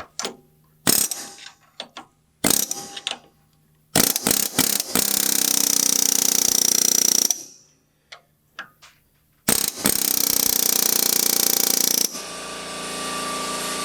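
Several sharp metal knocks on the hydraulic cylinder's pin collar, then two loud bursts of a power tool hammering at it, each about two seconds long. A steady machine hum starts near the end.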